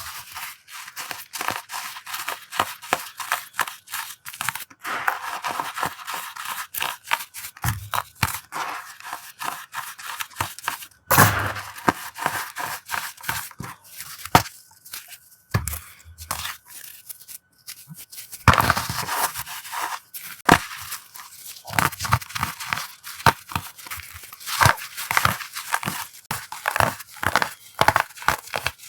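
Blocks of dyed gym chalk being crushed by hand: a dense run of crisp crunching and crackling with some slight squeaks, with a few louder snaps along the way.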